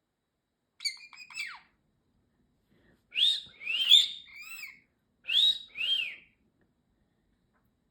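Parrotlet chirping in three short bouts: a quick call with a falling sweep about a second in, a run of several rising-and-falling chirps a little after three seconds, and two more chirps between five and six seconds.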